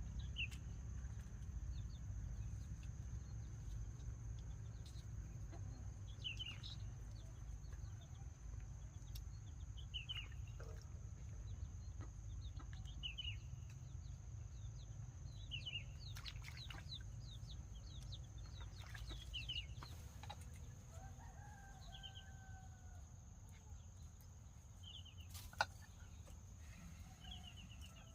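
Chickens calling: short high chirping calls repeated every second or two, with one longer drawn-out call about three quarters of the way through. A low steady rumble runs underneath, and there is a single sharp click near the end.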